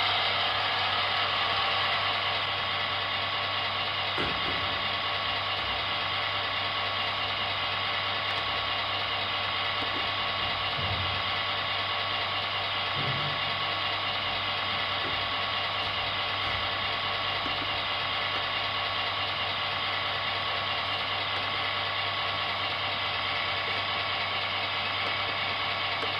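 Model diesel locomotive of Belgian series 55 (B-Models) giving out a steady mechanical drone, with a constant low hum beneath and a few faint knocks.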